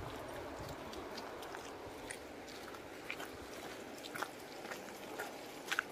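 Faint crunching footsteps on a dirt and gravel path, short irregular crunches about a second apart, the loudest near the end, over a steady outdoor hush.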